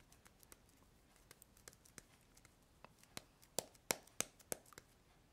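Hands handling a small crafting item at a desk: faint crinkles and light clicks, sparse at first, then a quick cluster of sharper clicks in the second half.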